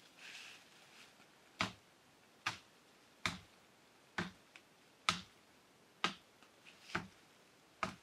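A blade chopping at a tree branch: eight sharp, evenly spaced chops, a little under one a second, starting about a second and a half in, with a brief rustle of leaves before them.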